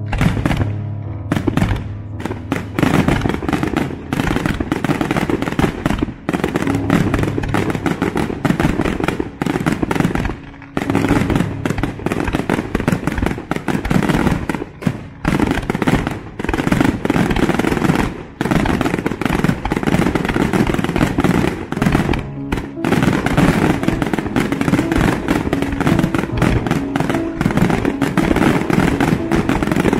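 Aerial fireworks display: shells bursting and crackling in rapid, nearly continuous succession, with a few brief lulls. Music plays underneath.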